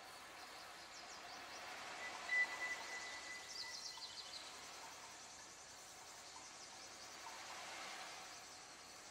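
Faint bird-like chirping over a soft steady hiss, with a thin high whistle held for about two seconds near the middle.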